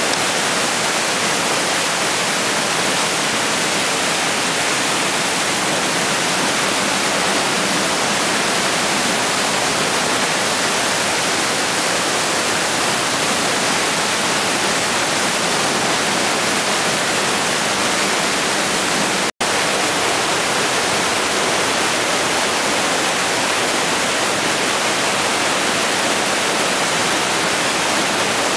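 Mountain torrent rushing over boulders in a narrow rock gorge, a loud, steady roar of white water. The sound cuts out for an instant about two-thirds of the way through.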